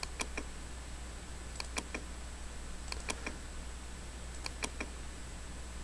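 Computer mouse clicking: short sharp clicks, mostly in quick pairs, repeating about every second and a half, over a steady low electrical hum.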